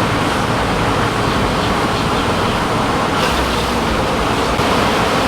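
A large mass of disturbed honey bees buzzing steadily close by, a dense, even hum from an opened colony.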